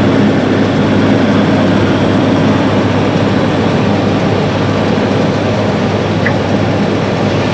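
New Holland CR8090 twin-rotor combine running steadily under load while harvesting corn, a loud, even machine drone with a low hum.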